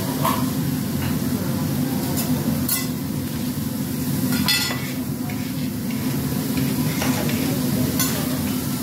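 Food sizzling on a steel teppanyaki griddle while metal spatulas scrape the plate and clink against it, with several sharp clicks a second or two apart over a steady din.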